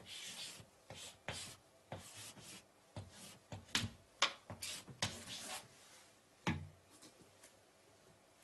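Chalk writing on a blackboard: a run of short scratching and tapping strokes as an equation is chalked up, followed by a single thump about six and a half seconds in.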